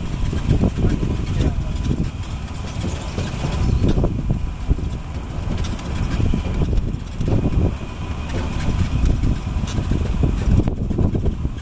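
Wind buffeting an outdoor camera microphone: a loud, uneven low rumble that swells and dips in gusts.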